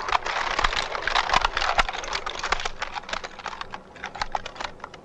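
A firing squad loading their rifles: a dense clatter of many rifle bolts and actions being worked at once, thinning to scattered clicks after about two seconds.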